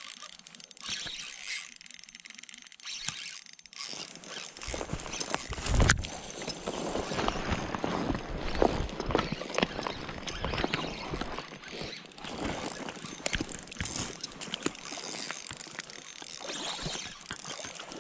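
Spinning reel being cranked while playing a hooked fish, its gears giving quick, irregular clicking and whirring. A low thump comes about six seconds in.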